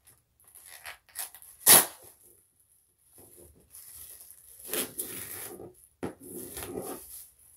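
Bubble wrap being handled: a few small clicks, then a single sharp pop about two seconds in, followed by crackling and rustling of the plastic sheet as it is squeezed.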